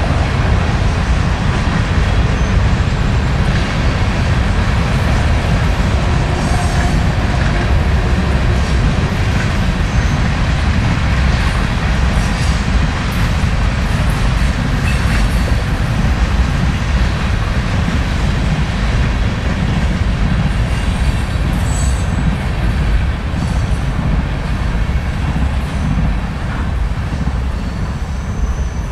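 Freight train cars rolling past, a steady, loud rumble of steel wheels on rail with a few faint, brief wheel squeals now and then.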